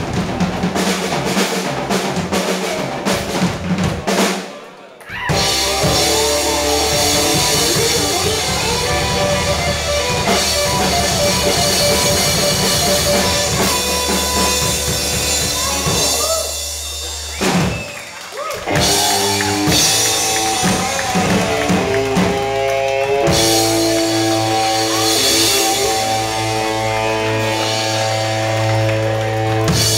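Live rock band playing: drum kit, electric guitars and bass together, with two short breaks in the sound, about four seconds in and again about seventeen seconds in, and held guitar notes near the end.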